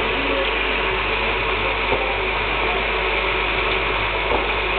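Automatic spot welding machine running: a steady mechanical drone and hiss, with a couple of faint clicks as the welding head works and throws sparks.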